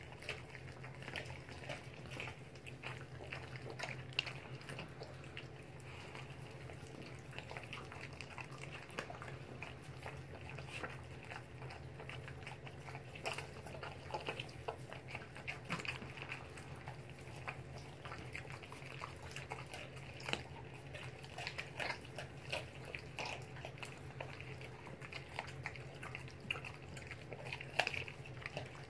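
A dog chewing a whole trout: irregular wet smacking, crunching and licking clicks throughout, over a steady low hum.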